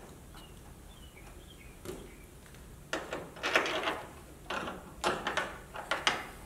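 Clamp knob being turned by hand up into the roof, clamping the clear polycarbonate top panel down: a run of short scraping, rattling clicks that starts about three seconds in.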